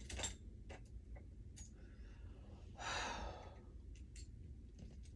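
A person sighing out a breath about three seconds in, among a few faint small clicks of jewellery being handled while rummaging for a ring.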